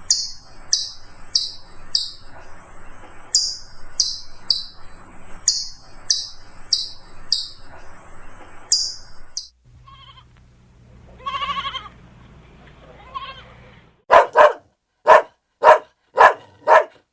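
A sequence of animal calls: first high, short chirps repeated about twice a second, then a single short bleating call, then a quick run of loud barks.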